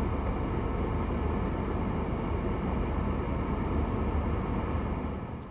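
Steady low rumble and hiss of a car cabin, with no distinct events, fading out near the end.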